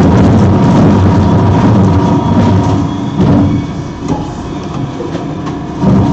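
Twin-shaft industrial shredder running, its toothed cutter discs crunching and tearing small cardboard boxes, plastic packaging and counterfeit watches, over a steady motor hum. The grinding is loud for the first few seconds, eases off in the middle, and comes back loud near the end as more items drop in.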